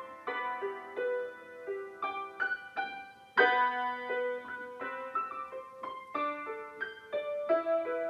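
Digital piano playing a slow melody over held chords. One chord is struck harder about three and a half seconds in.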